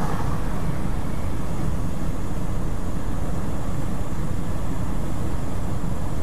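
Steady road and engine noise of a semi truck at highway speed, heard from inside the cab.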